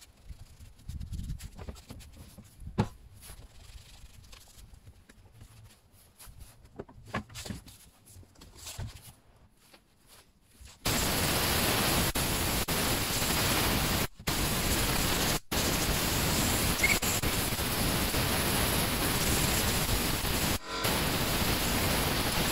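Faint rubbing and handling clicks as a chainsaw's housing is wiped by hand. About eleven seconds in, a compressed-air blow gun starts a loud, steady hiss, blowing dirt out of the saw, and cuts off briefly three times.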